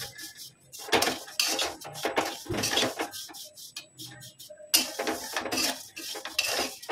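Steel spatula scraping and clattering against a stainless-steel kadhai in irregular strokes, stirring vermicelli being dry-roasted without ghee.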